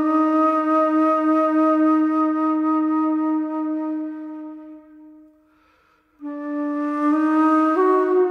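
Slow background music on a flute-like wind instrument. It holds one long low note that fades out about five seconds in, then after a short pause starts a new note that steps up in pitch twice near the end.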